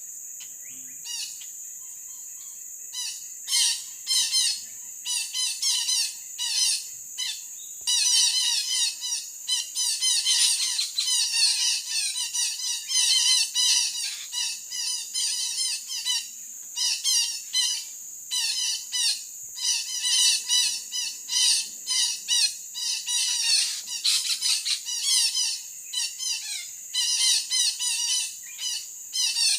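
Betet parakeets squawking: short, harsh calls in rapid runs with brief pauses, starting a few seconds in. Beneath them runs a steady high insect drone.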